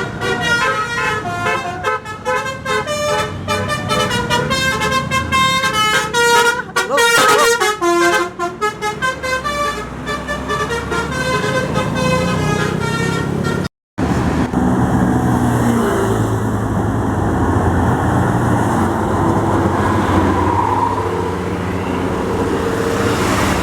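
Tour bus 'telolet' multi-tone musical horn playing a tune of stepped, changing notes for about fourteen seconds. After an abrupt cut, a steady rumble of bus engine and road traffic follows.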